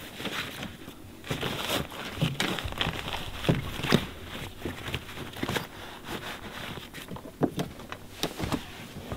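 Rustling and crinkling of an iKamper roof-top tent's canvas as it is pushed and tucked into the folded hard shell, with scattered knocks and clicks from hands against the shell and its frame.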